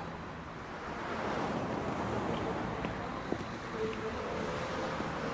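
Traffic passing on a wet street: a steady hiss of car tyres on the wet road, swelling slightly about a second in.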